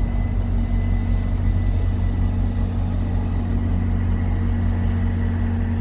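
Diesel locomotive engine of a Via Rail F40PH-2 running steadily: a low, even hum with a faint high whine above it that fades out about halfway.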